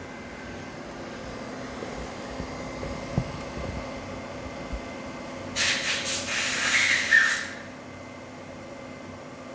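Laser marking machine and its fume extraction running during engraving of a stainless steel knife blade, with a steady hum. Just past the middle there is a loud hiss lasting about two seconds.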